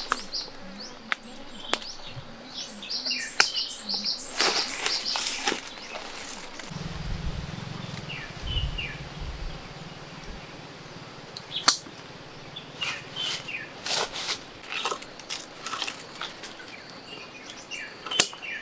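Small birds chirping in short high notes, mostly in the first third, among scattered sharp clicks and knocks, with a low rumble for a few seconds in the middle.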